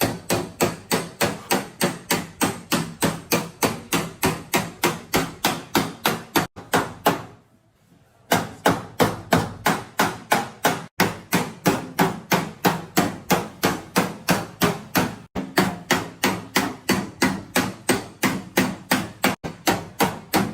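Rapid, evenly paced hammer blows on car-body sheet metal, as in panel-beating out a dent, about four strikes a second, with a pause of about a second some seven seconds in.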